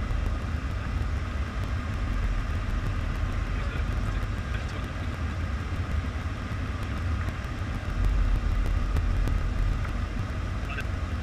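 Steady low rumble of airflow and engines inside the cockpit of a Boeing 747 in flight. It swells slightly for a second or so near the end.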